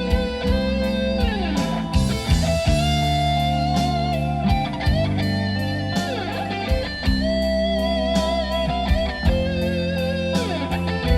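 Music: an electric guitar lead with held, bending and sliding notes over a steady bass and a regular drum beat.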